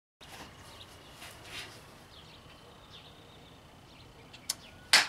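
Faint outdoor background with a few soft rustles, then near the end a single sharp, loud clap of rubber-gloved hands, just after a smaller click.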